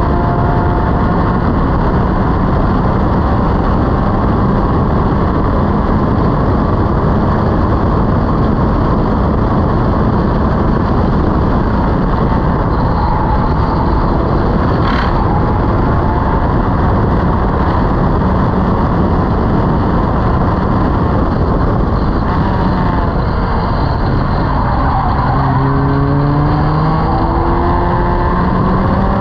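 Locost race car's engine running hard at racing speed, heard from the open cockpit with wind noise. About three quarters of the way through the revs drop as the car slows, then climb again in steps through the gears. A single sharp click comes about halfway through.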